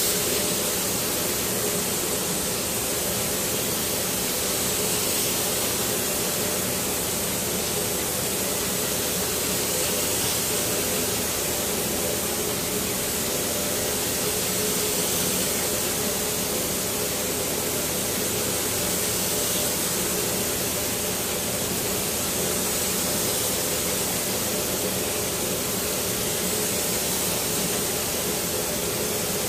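Steady hiss of a compressed-air spray gun laying on high-build primer, with the steady hum of the air compressor that feeds it.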